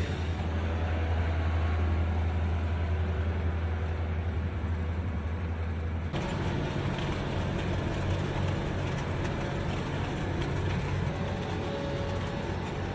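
Engines of heavy road-construction machinery running steadily with a low hum; the sound changes abruptly about six seconds in to a different machine's engine.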